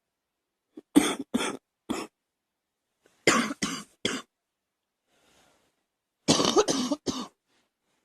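A girl coughing in three bouts of about three coughs each, with a faint breath between the second and third bouts.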